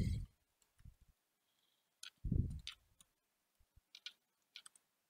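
Faint computer keyboard keystrokes: scattered single key clicks while code is typed, with a short low thump about two seconds in.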